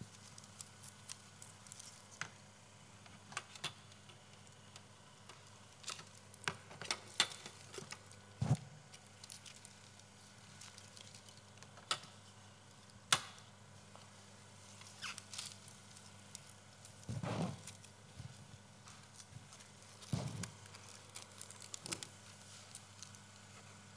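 Scattered clicks, taps and small knocks of hands handling tape-machine equipment on a table, with a few duller thumps, one about a third of the way in and two more later.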